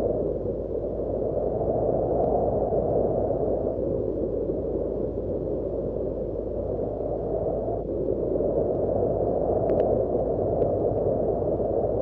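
Wind blowing in a steady low rush that swells and eases in slow gusts.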